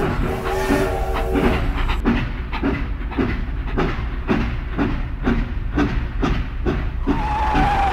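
Toy steam train's chugging sound, an even rhythm of about three chuffs a second, preceded by a couple of seconds of steady tones, with a steady high tone starting near the end.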